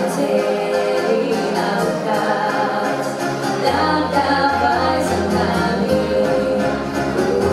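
Recorded pop song with singing playing as a dance track; a deep bass line comes in about halfway through.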